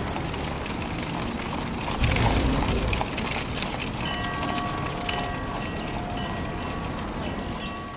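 Train running on rails, a steady rumbling noise that swells about two seconds in. From about halfway, several steady high tones sound over it and break off at intervals.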